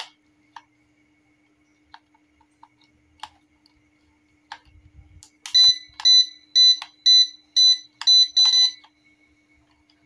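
A few light clicks of buttons and sticks on a toy drone's remote controller, then a run of about seven short, sharp, high beeps, roughly two a second, from the controller's buzzer. The drone's battery is flat.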